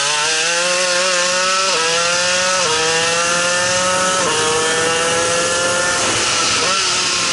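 Shifter kart's single-cylinder two-stroke engine at full throttle, its pitch climbing and then dropping sharply at three quick upshifts, about two, three and four seconds in, before the note falls away near the end. A steady rush of wind noise runs underneath.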